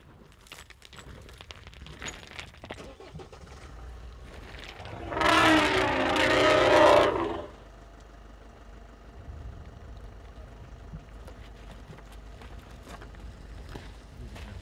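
A desert elephant trumpets loudly once, a brassy call of about two and a half seconds beginning about five seconds in, over the low steady running of a vehicle engine.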